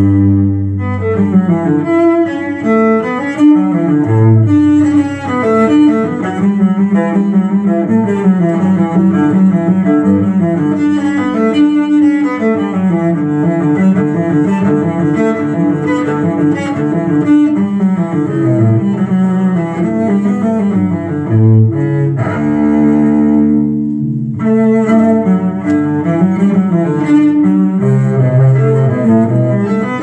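Classical music for cello and bassoon played back from a vinyl record, with the bowed cello most prominent in a continuous, moving line of notes. There is a briefly held note about two-thirds of the way through.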